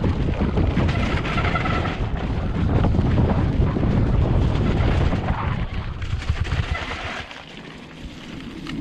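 Vitus Sommet NX mountain bike ridden over a wet, muddy trail: wind buffeting the microphone over the rumble and rattle of tyres and frame. The noise drops off about seven seconds in.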